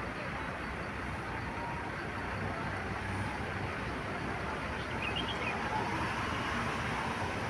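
Steady road-traffic noise: the even rumble of vehicles running by, with no horn sounding.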